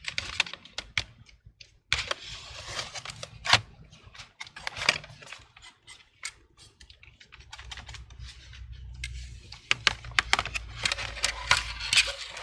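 Irregular plastic clicks and taps from handling the disassembled HP 17 laptop's cracked palmrest and casing, with some dull handling knocks.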